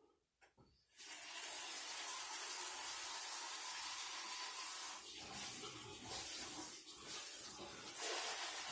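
Water running, a steady rushing hiss that starts about a second in and cuts off suddenly near the end.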